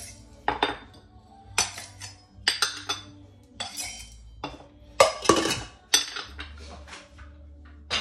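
Whole spices (star anise, cloves and peppercorns) tipped from small porcelain dishes into a stainless-steel spice grinder: an irregular string of sharp clinks and rattles as the dishes knock against the grinder and the spices drop in.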